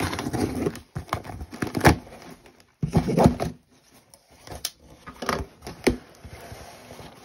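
Packing tape slit with a knife and a cardboard shipping box's flaps pulled open, with rustling of packing paper: irregular scraping and crackling broken by a few sharp knocks, the loudest a little under two seconds in and near six seconds.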